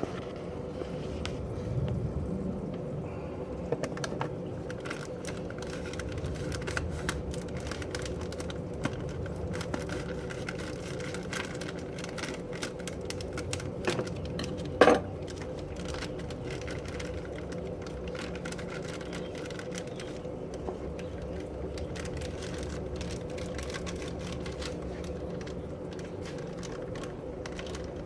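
Steady hum of aquarium air pumps running sponge filters, with scattered small clicks throughout and one louder sharp click about halfway through.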